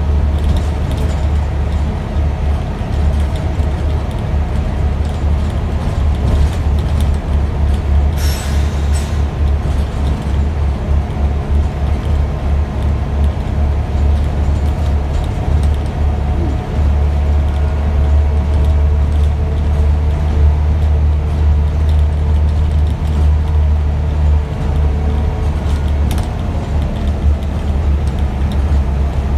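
Scania OmniDekka double-decker bus heard from inside the passenger saloon, its engine worked hard at speed: a loud steady low drone with a steady whine above it. A brief sharp clatter comes about eight seconds in.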